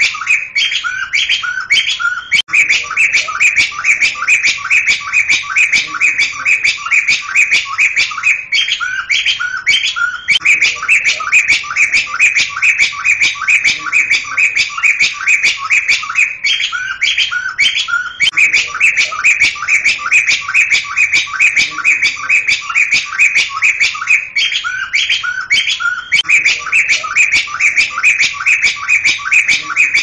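Sunda laughingthrush (Garrulax palliatus) calling: an unbroken, rapid series of sharp chattering notes, about five a second. A short phrase of lower notes breaks in about every eight seconds.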